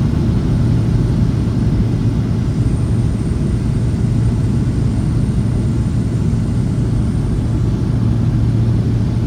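Steady, loud drone of a light aircraft's piston engine and propeller in flight, a constant low hum with no change in pitch.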